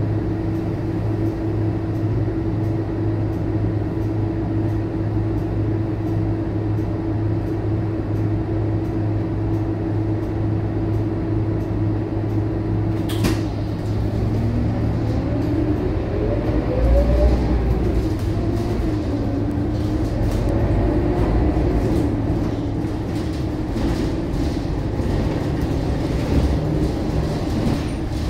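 Scania K230UB city bus's diesel engine idling steadily with a held hum, heard from inside the cabin. About 13 seconds in there is one short sharp sound, then the engine and driveline rise in pitch in repeated climbs as the bus pulls away and accelerates.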